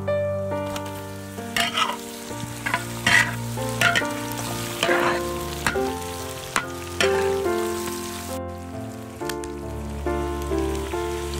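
Pork skin rolls, dried chillies and garlic frying in hot oil in a large steel wok: a steady sizzle, with a metal spatula scraping and stirring against the wok again and again in the first half.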